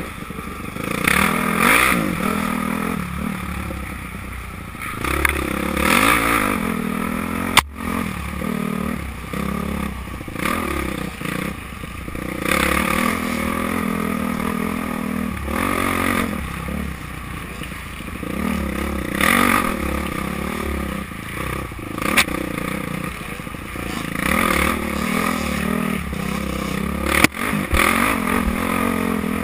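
Off-road dirt bike engine revving up and falling off again and again as the rider works the throttle through the trail, with scraping and rattling from the bike over rough ground. Three sharp knocks cut through, about a third of the way in, past two-thirds, and near the end.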